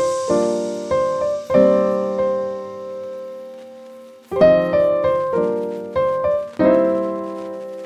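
Background piano music: chords struck and left to fade, one chord held and fading for a few seconds through the middle, then new chords struck again about four seconds in.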